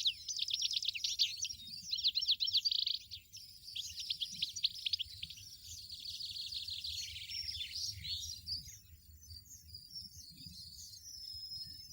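European goldfinch singing: a rapid, high twittering of quick chirps and trills. It is densest and loudest in the first three seconds and thins and fades after about eight seconds.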